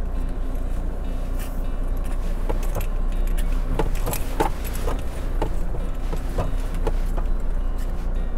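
A car's engine and tyres rumbling steadily at low speed on a rough dirt track, heard from inside the cabin. From about two and a half seconds in, loose things in the cabin jangle and rattle in quick irregular clicks as the car bumps along.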